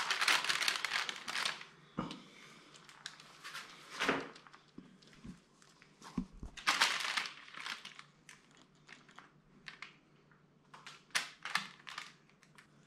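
Resin-coated crushed glass being stirred and scooped with a wooden craft stick on a crumpled sheet: gritty rustling and crinkling in several short bursts, the longest at the start, with quiet gaps between.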